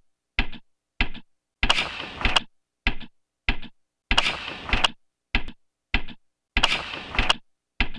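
A looping pattern of sharp mechanical clicks: a short rattling burst with a click at each end, then two single clicks, the cycle repeating about every two and a half seconds with dead silence between.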